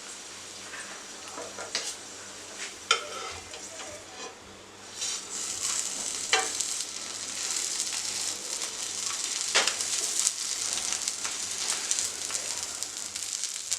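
Wheat-flour tortilla wrap frying in oil in a pan: a steady sizzle that grows louder about five seconds in, with a few sharp knocks against the pan.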